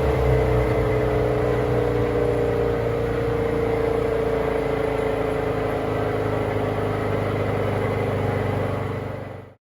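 A wood chipper's engine running steadily, its pitch holding nearly constant, then stopping abruptly near the end.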